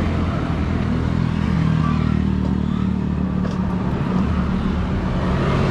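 A vehicle engine running at a steady idle, a continuous low drone.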